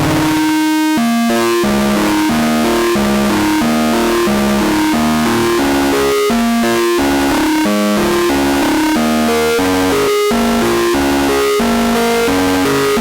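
Electronic music: a synthesizer plays a melody of short notes that step every few tenths of a second, over a dense, noisy layer.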